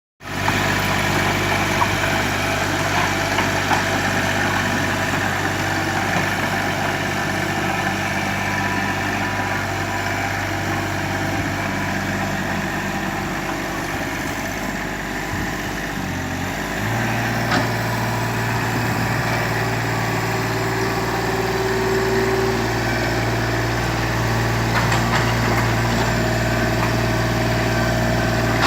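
Excavator's diesel engine running steadily, its note stepping up slightly about seventeen seconds in and holding there.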